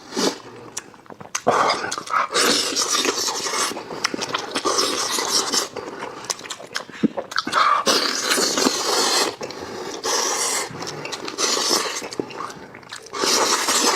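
Loud eating sounds from a person eating sheep's head meat: repeated slurping and sucking in bursts of a second or two, with a few sharp wet clicks.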